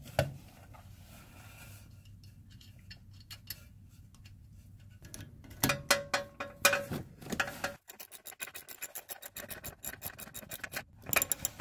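Ratchet wrench clicking as it drives in the 10 mm hex bolt that holds a new ABS wheel speed sensor in the hub, with rapid even clicks, about seven a second, in the second half. Before that, faint rubbing as the sensor is pushed into place.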